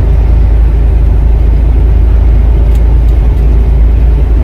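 Steady low drone of a semi-truck cruising on the highway, heard inside the cab: diesel engine and road noise.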